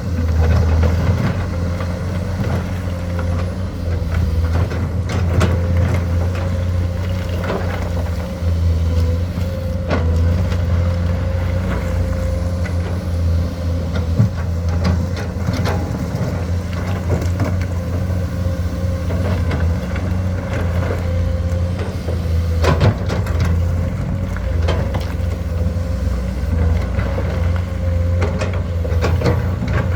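Komatsu excavator's diesel engine running steadily under working load, with a steady higher-pitched tone above the engine note and occasional sharp knocks and clatter.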